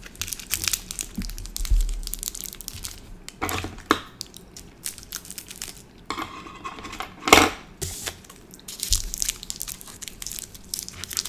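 Plastic candy wrapper crinkling and crackling in irregular bursts as the tube of sour dough candy is handled and squeezed, with one sharper, louder crackle about seven seconds in.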